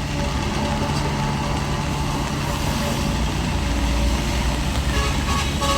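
Heavy diesel construction machinery running steadily, with a reversing alarm starting to beep near the end.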